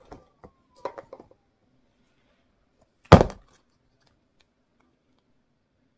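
Plastic modelling-dough tubs clicking and knocking against each other and the table as they are moved, then one loud, sharp plastic knock about three seconds in.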